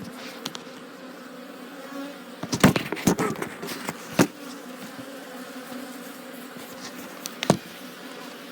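A honey bee colony humming steadily at an open hive. A cluster of sharp knocks about two and a half to three and a half seconds in, another just after four seconds, and a single one near the end.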